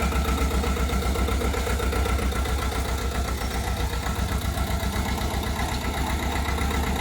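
Engine of a crawler mini tractor running steadily at idle, with a fast, even low-pitched pulsing.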